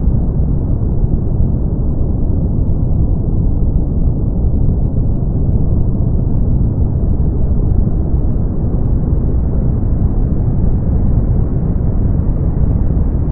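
Brown noise: a steady, deep rumbling hiss weighted toward the low end, with almost nothing above the upper midrange, unchanging throughout.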